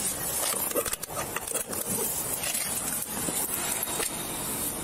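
Police body-camera audio: steady hiss with rustling and scraping of clothing and handling against the camera's microphone, and a few faint knocks.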